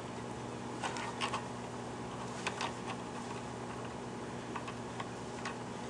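Light, irregular clicks and taps from wires and connector leads being handled and joined, over a steady low hum.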